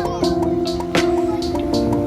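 Background music: held chords that change in steps, over a light regular beat.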